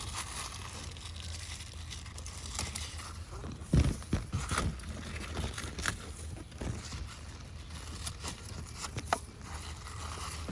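Squash leaves rustling and snapping as they are handled and cut, with scattered short clicks and a sharp knock about four seconds in, over a steady low rumble.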